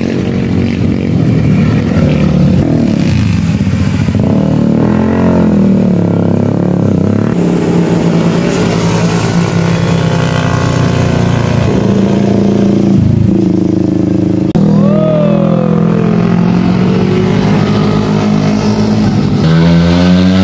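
Motorcycles and scooters passing through a bend one after another, their engines changing pitch as they slow for the curve and accelerate out of it.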